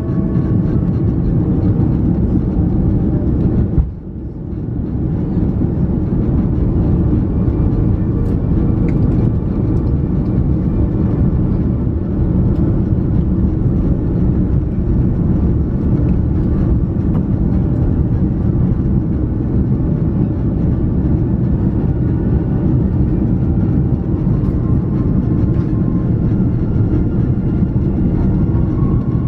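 Airbus A330 cabin noise in flight: a steady rumble of engines and airflow, heaviest in the low range. The sound briefly dips about four seconds in, then returns.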